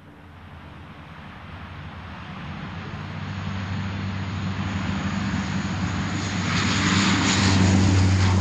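Twin-engine propeller plane's engines droning as it flies toward the listener, the steady hum and rushing noise growing louder throughout.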